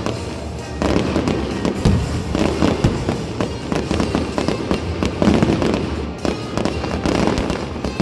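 Fireworks display: aerial shells bursting, with a dense, continuous barrage of bangs and crackling.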